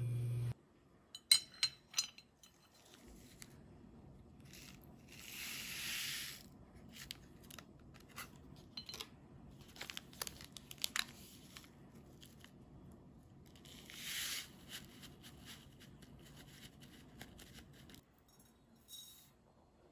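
Instant coffee granules being scooped and poured with a dry rustling hiss, twice, between light clicks of a small ceramic measuring spoon against the dish.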